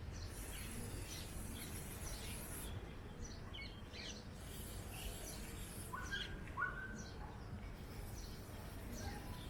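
Birds chirping on and off in the background, with two stretches of faint high hiss: one lasting about two seconds near the start and another of about three seconds from around four and a half seconds in.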